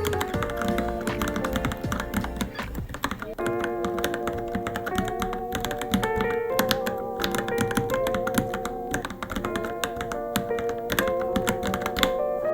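Rapid, irregular key clicks of typing on a Varmilo Minilo keyboard over background music. The typing stops at the very end.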